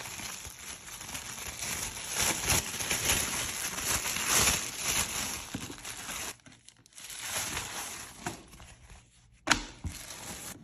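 Thin plastic bread bag rustling as it is untied and opened and a khuboos flatbread is pulled out. The rustling stops about six seconds in, comes back briefly, and a single sharp tap follows near the end.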